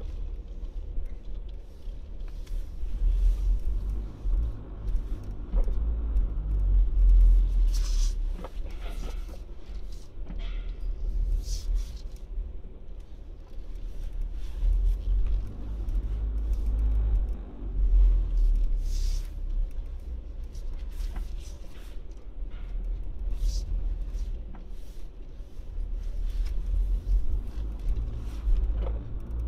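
Car driving slowly, heard from inside the cabin: a low, uneven rumble of engine and tyres that swells and fades, with a few short clicks or knocks now and then.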